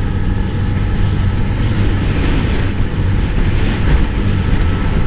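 Kawasaki Z900 inline-four motorcycle with an aftermarket Cobra exhaust, running steadily at cruising speed, heard from the rider's position with wind and road noise over the microphone.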